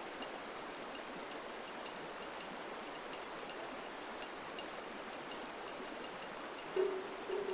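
Crackling fire: a steady hiss with irregular sharp pops. A little before the end a hollow wood-block-like percussion starts knocking a repeated note.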